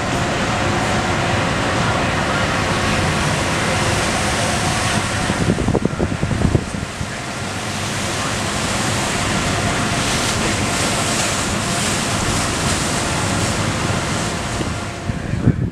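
Strong wind buffeting the microphone over the rush of open sea, with stronger gusts about six seconds in.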